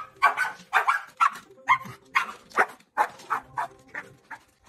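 A dog barking repeatedly, about two barks a second, the barks getting fainter near the end.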